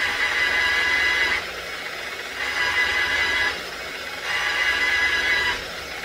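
Electric polisher spinning a cotton buffing wheel against aluminum. The whine swells three times, for about a second each, as the piece is pressed into the wheel, and drops back between passes.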